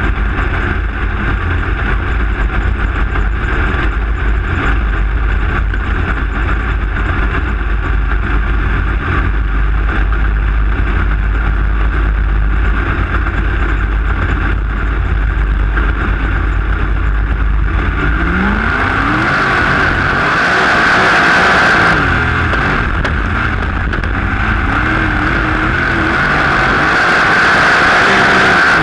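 Open-wheel dirt-track race car's engine heard from a camera in the cockpit, running with a low steady rumble as the car rolls slowly among the other cars. About 18 seconds in it revs up, the pitch climbing and then wavering up and down as the car speeds up, with a louder rushing noise over it.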